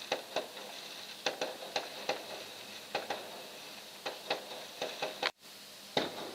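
Fireworks popping and crackling in irregular sharp cracks, a couple a second. The sound cuts out briefly about five seconds in.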